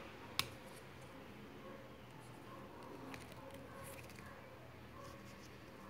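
A single sharp click about half a second in, followed by faint scattered ticks and light rustling over quiet background noise.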